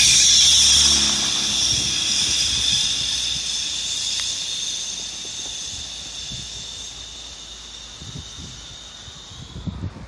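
Cars passing on a wet, slushy snow-covered road: a brief engine rumble at the start, then a high tyre hiss off the slush that fades away over about nine seconds.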